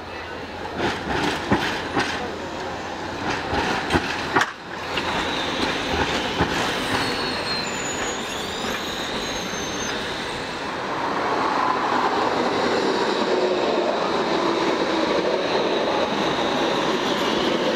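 Low-floor electric tram (CroTram TMK 2200) running over curved track and points. Its wheels knock over the rail joints in the first few seconds, squeal briefly and high-pitched around the middle, then give way to a steady rumble as it passes close by.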